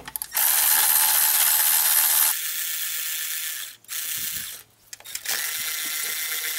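Milwaukee 12-volt cordless electric ratchet running in bursts, spinning a 10 mm deep socket on an extension to remove a bolt. A long run of motor whir gets quieter about two seconds in and stops, followed by a brief blip, and the ratchet starts up again near the end.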